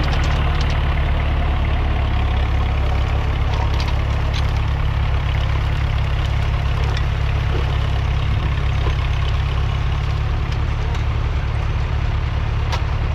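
1961 Massey Ferguson 35's 2.3-litre four-cylinder diesel engine running steadily, with a deep, even low drone.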